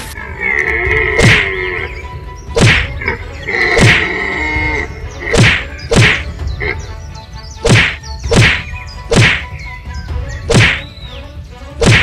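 Cartoon fight sound effects: a series of about ten sharp whacks, irregularly spaced roughly a second apart, as animated animals strike each other, with two held high tones in the first half and background music underneath.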